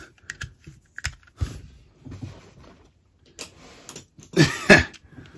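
Hard plastic clicks and knocks from a Bandai Memorial Hurricane Gyro toy device being handled and turned over in the hands, a few separate clicks a second apart. A brief vocal sound comes near the end.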